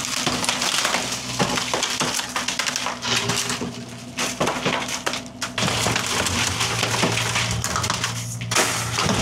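Engine running steadily under a continuous crackle of wood splintering and breaking, with scattered clinks: machinery crushing wooden debris.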